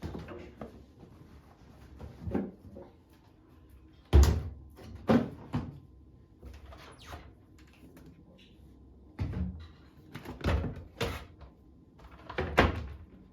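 A series of knocks and thuds from household handling, such as cupboard doors opening and closing and items being set down. There are about eight separate strokes with quiet gaps between them, and the loudest is about four seconds in.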